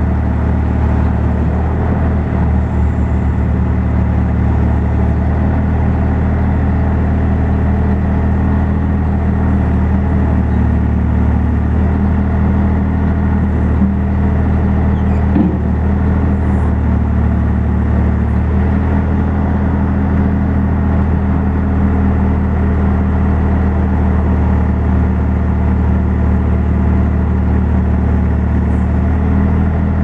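New Holland skid steer's diesel engine running steadily at a constant speed while it powers a Bradco 609 backhoe attachment whose boom and bucket are being worked by hand levers. A brief faint knock comes about halfway through.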